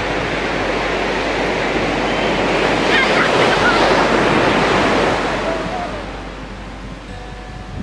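Sea surf breaking and washing up a sandy beach. The wash swells to its loudest in the middle and eases off after about five seconds.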